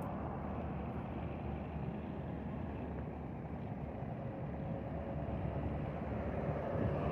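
Highway traffic going past: a steady rumble of vehicle engines and tyres. A small goods truck's engine grows louder as it approaches in the last couple of seconds.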